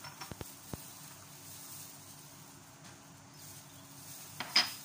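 Small bowls of ingredients knocking against a granite countertop as they are picked up and moved: a few light clicks near the start and one sharp clink near the end.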